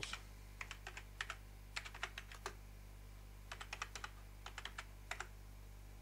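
Computer keyboard keys being typed in short bursts of quick taps, with pauses between the bursts, as a few words are entered.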